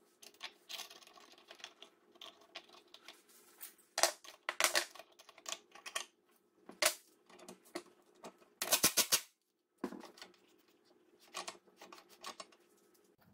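Irregular clicks and clinks of hand tools and small metal parts being handled, with a quick run of clicks about nine seconds in.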